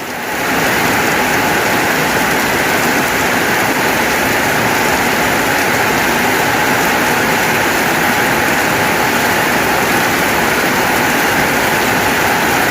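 Heavy rain pouring down: a loud, steady, dense hiss that swells up just after the start and then holds even.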